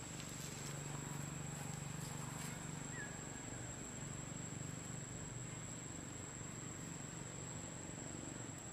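Steady outdoor ambience: a constant high insect trill with a low hum beneath it, and a few faint clicks in the first few seconds.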